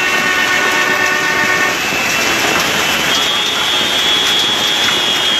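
Hail and rain falling hard on cars and the street, a dense steady hiss. A vehicle horn sounds for nearly the first two seconds, and a thin high steady tone is held through the second half.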